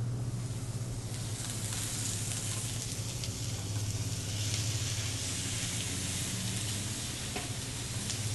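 Onions sautéing in a hot pan, sizzling steadily, the sizzle growing a little stronger about a second in, over a steady low hum. A couple of faint ticks near the end.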